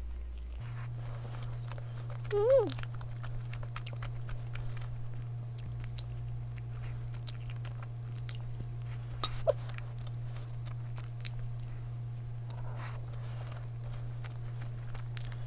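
Close-up chewing of a cream-filled donut, with small wet mouth clicks. A short rising-and-falling vocal sound comes a couple of seconds in and again past halfway, over a steady low hum.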